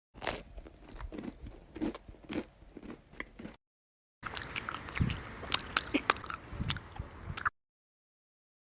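A person chewing food close to the microphone, with sharp crunching bites. The chewing comes in two takes of about three and a half seconds each, cut apart by dead silence, and stops about a second before the end.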